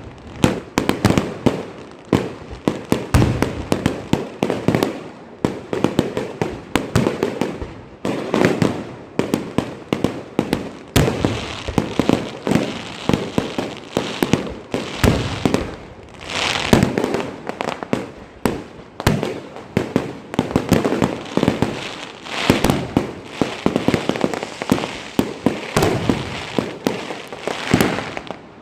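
Fireworks and firecrackers going off in a dense, continuous barrage: many overlapping bangs and pops with no pause.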